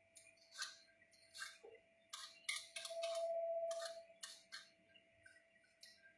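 A quick, irregular series of about a dozen short scraping strokes, roughly two a second, like food being cut or scraped by hand, over a steady faint tone.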